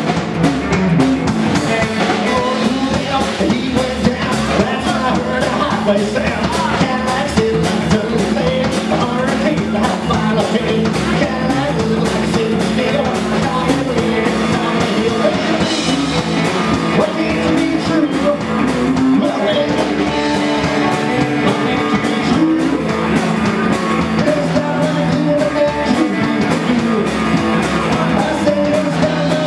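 A live rock and roll trio playing a song: hollow-body electric guitar, slapped upright bass and drum kit keeping a steady beat, with a man singing lead.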